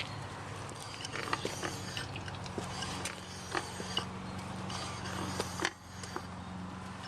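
Geo Metro wheel squeaking and creaking in short, irregular bursts as the car rolls slowly in neutral, over a steady low hum. The sound is like a wooden rocking chair, and the owner puts it down to the axles or brakes.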